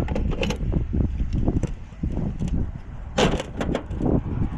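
Irregular metallic clicks and knocks of hand tools working on a truck's tie rod, louder and quicker a little past three seconds in, over a steady low rumble.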